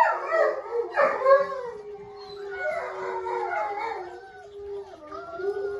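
Several dogs howling at once: long, overlapping howls at different pitches, with one low howl held steady beneath higher ones that rise and fall.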